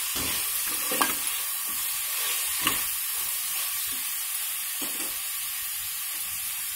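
Mixed vegetables sizzling steadily in hot oil in a pressure cooker pan as a spoon stirs them, the spoon clicking and scraping against the pan a few times.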